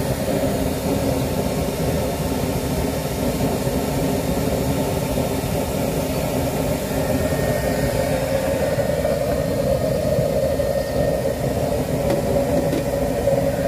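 Homemade used-oil stove burning steadily under a wok with a constant roar.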